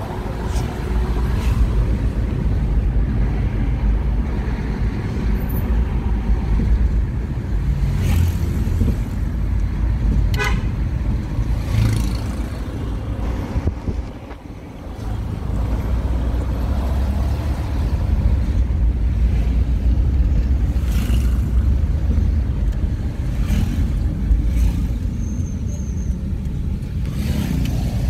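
Low, steady rumble of a moving car's road and engine noise, with a brief horn toot about ten seconds in. The noise drops for a moment around fourteen seconds.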